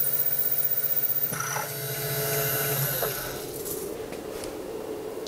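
Mini mill spindle driving a large drill bit into an aluminium block, the cut chattering with a fast flutter. A little over a second in the cut ends and the spindle runs on freely with a steady whine that drops in pitch about three seconds in, then settles to a quieter hum.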